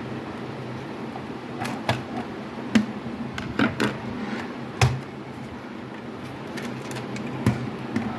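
Scattered clicks and knocks of a plastic telephone casing and its parts being handled and worked apart, about seven in all, over a steady low hum.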